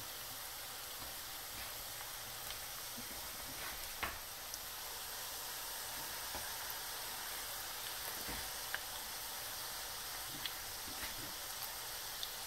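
Chiacchiere dough strips deep-frying in a pan of hot oil: a steady sizzle with a few small pops and crackles. The oil is at frying temperature, bubbling hard around the dough.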